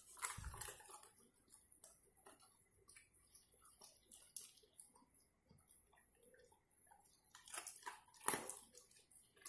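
Labrador eating from a steel bowl: faint, scattered chewing and clicking, with a low thump about half a second in and a louder cluster of clicks near the end.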